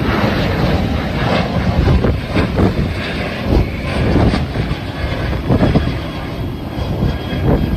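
Air Do jet airliner taking off, its engines at takeoff thrust giving a continuous rumble. Strong gusty wind buffets the microphone and makes the level swell unevenly.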